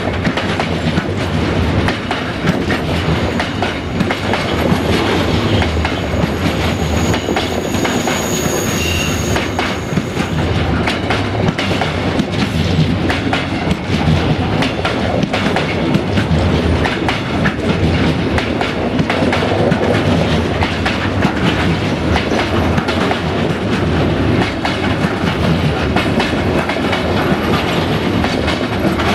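Loaded container wagons of a freight train rolling past close by: the wheels clatter over the rail joints with a steady rumble. A faint high tone rides over it for a few seconds about a quarter of the way through.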